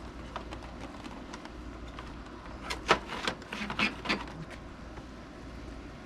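Handling noise from a window air conditioner being put back together: a few light clicks, then a quick run of sharp clicks and knocks about halfway through, as the cabinet's trim and panels are fitted and tools picked up.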